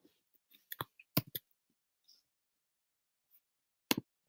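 Sharp clicks of a computer mouse, several in quick succession about a second in and a double click near the end, with faint handling noise between.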